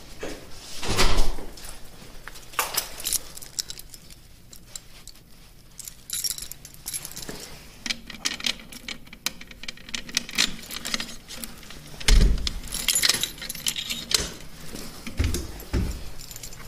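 A bunch of keys jangling and clicking while a door lock is worked, with a few dull thumps about a second in, near twelve seconds and again near the end.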